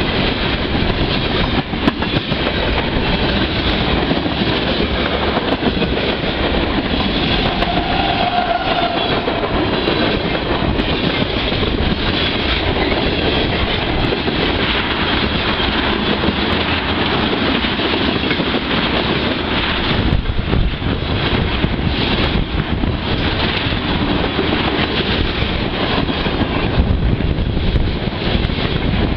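Freight train of tank cars rolling past close by, with the steady noise of steel wheels on rail throughout; a brief squeal is heard about eight seconds in.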